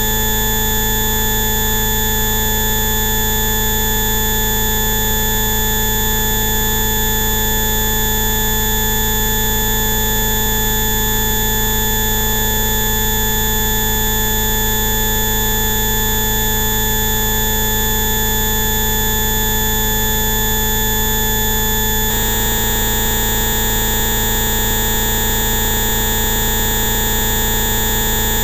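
Electronically generated 'bioresonance' (Rife-style) frequency tones: several steady pitches sounding together over a fast buzzing flutter, at a constant loud level. About 22 seconds in it switches abruptly to a slightly different set of tones.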